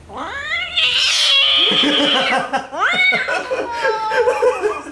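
Ginger kitten yowling while being held up: a long drawn-out cry of about two seconds, then a short rising cry and several wavering cries that rise and fall in pitch.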